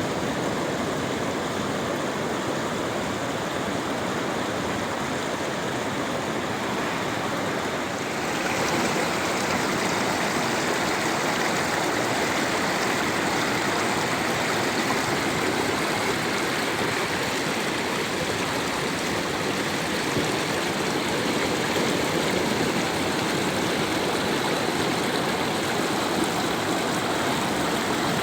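Sea surf washing in a steady, unbroken rush, growing a little louder and brighter about eight seconds in.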